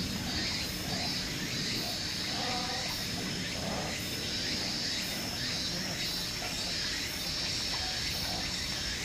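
Outdoor ambience: a steady, high insect drone with a faint regular pulse, and scattered faint short animal calls.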